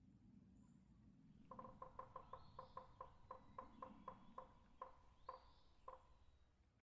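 A bird calling a rapid series of short, low-pitched notes, about four a second and spacing out towards the end, over a faint low rumble of outdoor background. The recording cuts off abruptly just before the end.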